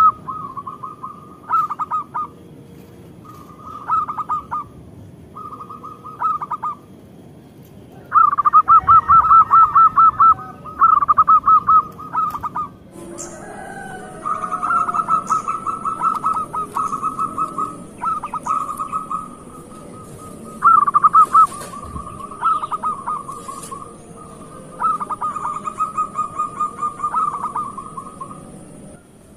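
Zebra dove (perkutut) singing: repeated phrases of quick, staccato cooing notes, each phrase a second or two long, separated by short pauses.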